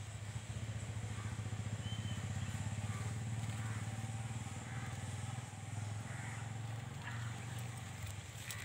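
Steady low rumble of an idling engine, with a fine rapid pulse.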